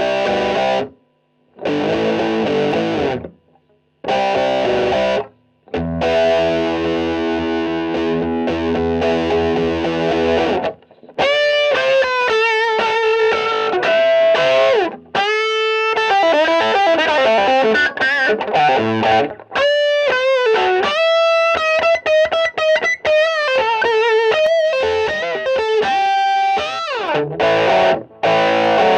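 Guitar chords struck and left to ring, separated by short breaks; from about eleven seconds in, a distorted electric guitar plays a single-note lead line with bends and vibrato.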